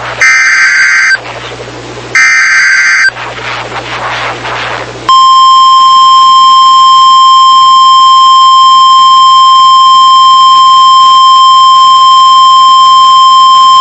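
NOAA Weather Radio EAS alert. It opens with the last two of the three SAME header data bursts, each a harsh one-second warble, then a couple of seconds of radio hiss. About five seconds in, the single steady 1050 Hz warning alarm tone begins and holds for about nine seconds, the signal that a warning message follows.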